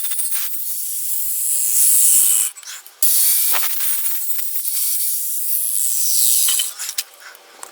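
An exhaust pipe being cut through with a power cutting tool: a loud, steady, high hiss. It breaks off briefly about two and a half seconds in, resumes, and stops about seven seconds in as the cut finishes.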